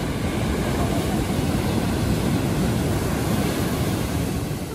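Ocean waves breaking in the shorebreak and the whitewash rushing up the beach, a loud steady rush of water that eases off near the end.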